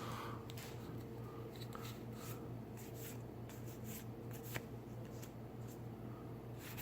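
Magic: The Gathering cards from a freshly opened booster pack being slid and flipped through by hand: faint soft rustles and ticks over a steady low hum.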